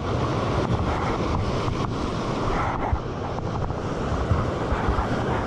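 Sea surf washing over rocks, with wind buffeting the microphone in a steady low rumble.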